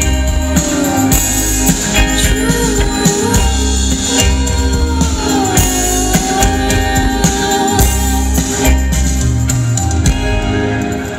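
Band music with a lead singer: a voice gliding over a held chord, with heavy bass pulses and drums.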